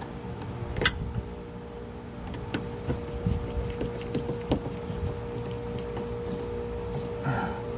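Scattered small clicks and knocks of hand work on the fuel filter mounting as the screw and fittings go back in. A steady hum sets in about two and a half seconds in.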